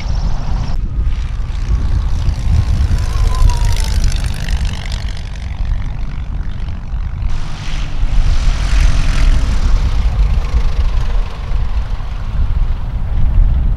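Light single-engine propeller airplanes running at power close by, a steady engine-and-propeller drone with heavy low rumble. The sound changes abruptly about a second in and again about halfway through, where short takes are cut together.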